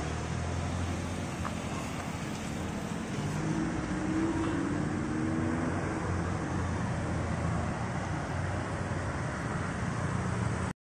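Street traffic with motorbikes riding past: a steady low engine hum over road noise, and around the middle one engine rises in pitch as it passes. It cuts off suddenly near the end.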